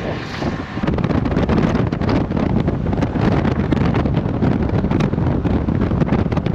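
Wind buffeting the microphone over the steady rumble of a moving car.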